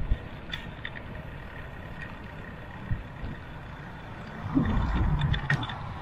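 Mountain bike ridden along a paved path: tyres rolling on asphalt, wind buffeting the microphone, and scattered light clicks and rattles from the bike. About four and a half seconds in, a louder low rumble with a flurry of rattling lasts about a second.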